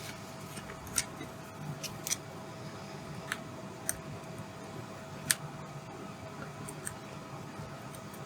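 Scattered small clicks and taps as a prying tool works at the battery connector inside an opened MacBook Air, about seven sharp ticks at irregular intervals over a faint steady hum.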